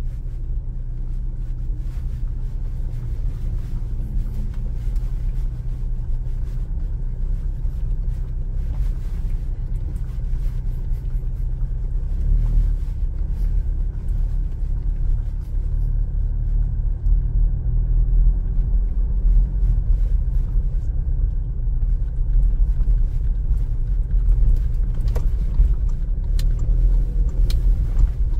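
Cabin noise of a Toyota SW4 rolling very slowly over a dirt road: a steady low rumble from the tyres and drivetrain that grows a little louder about halfway through, with scattered faint clicks and a few sharper ticks near the end. The rear stays free of the irritating tick-tick rattle being tested for, with the new rear shock absorbers fitted.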